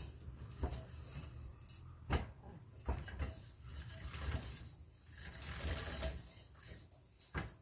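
Irregular metallic clinks and rattles, with scattered knocks over a low rumble, from the metal parts of a hand-operated well-drilling rig being worked under load.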